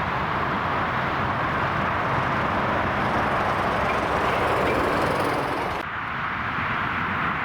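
Jet airliner engine noise: a steady, loud rush that builds a little, then cuts abruptly to a duller version of itself about six seconds in.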